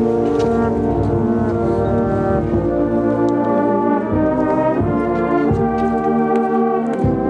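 Brass band playing a slow piece in held, sustained chords that change every second or so.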